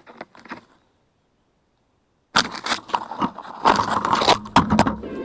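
Twigs and leaves crackling and rustling against a crashed FPV quadcopter's onboard camera as it is handled in a tree: brief rustling at the start, a short gap, then dense crackling and snapping from about two seconds in.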